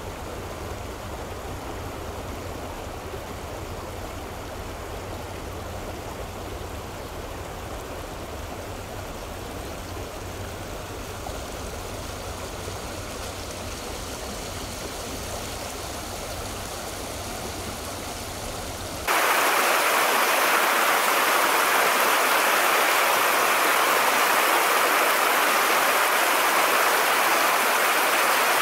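Steady rush of flowing river water with a low rumble beneath. About two-thirds of the way in it changes abruptly to a louder, brighter rush without the rumble.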